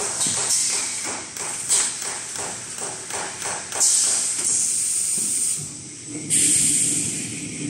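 Toilet-paper rewinding machine running: a run of rhythmic knocks about three a second, then two loud bursts of hissing air about four and six seconds in, while a finished paper log is released.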